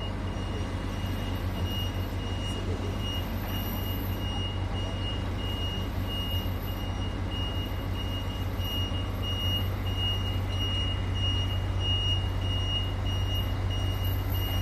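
A heavy diesel machine running with a steady low rumble while a reversing alarm beeps at an even pace throughout.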